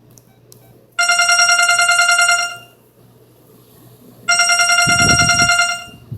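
Phone ringtone played through the LG CU500's speaker: a telephone-ring style tone sounding twice, each ring steady in pitch and lasting about a second and a half. A low rumble sits under the second ring.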